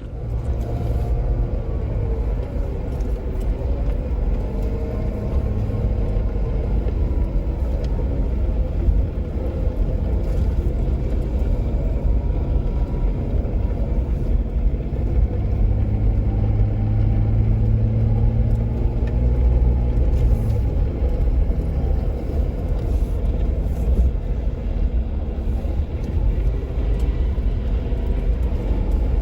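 Jeep Wrangler driving on a dirt trail: the engine runs with its pitch slowly rising and falling over a steady low rumble.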